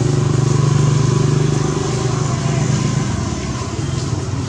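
Motorcycle engine running steadily, its pitch dropping about three seconds in.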